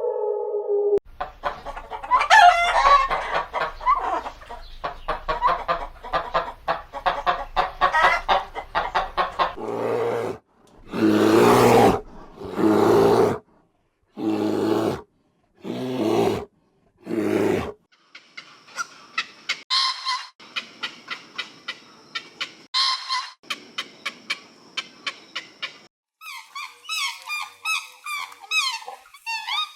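Chickens clucking and calling, in several stretches that change abruptly: a run of rapid clucking, then about six separate loud calls, then quicker, higher repeated calls near the end.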